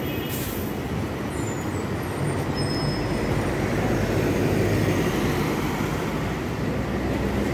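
A BYD electric city bus pulls away from a stop amid steady street traffic rumble. There is a short hiss of air just after the start.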